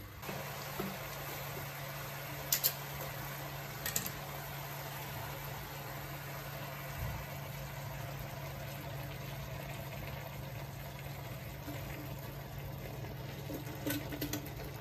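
Steady low hum with an even hiss from the stove while a pan of chicken, broccoli and carrots cooks on it. A few light clicks come about two and a half seconds in, again at four seconds, and near the end.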